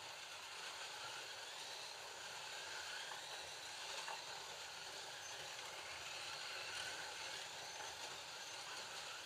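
Several digital Scalextric slot cars lapping the plastic track: a steady whir of small electric motors mixed with the hiss of tyres on the track.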